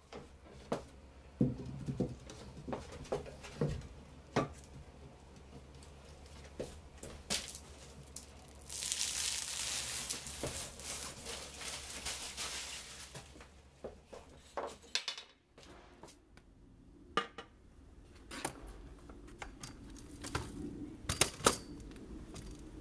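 Scattered clinks and knocks of a glass tabletop being handled and laid into a wooden table frame, with a hiss lasting about five seconds in the middle. After a break, a few more sharp clicks and knocks.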